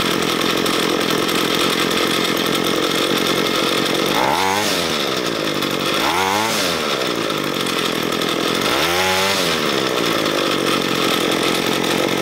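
Ryobi ES30 string trimmer's small two-stroke engine idling, revved up briefly three times and falling back to idle each time. Its idle mixture screw has just been turned half a turn leaner after running too rich and wanting to die, and it now sounds about right.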